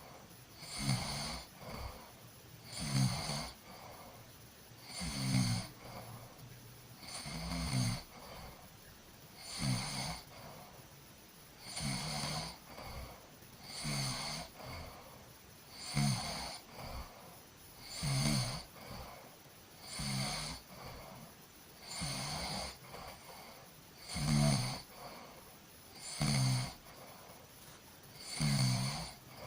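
A person snoring in a steady, even rhythm, one snore about every two seconds.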